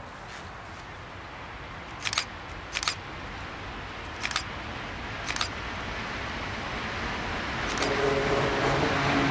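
ET41 twin-section electric locomotive and empty car-transporter wagons rolling past: a steady rumble of wheels on rail that grows gradually louder, with sharp metallic clacks, some in quick pairs, about two, three, four and five seconds in and again near the end. A low hum joins the rumble in the last second or so.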